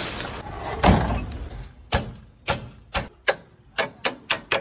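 A series of about nine sharp knocks, hard object against hard object, irregularly spaced and coming faster toward the end.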